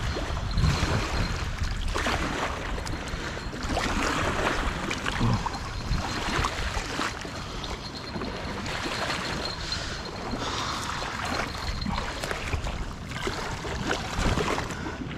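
Strong wind buffeting the microphone, with choppy water lapping and splashing against the muddy bank.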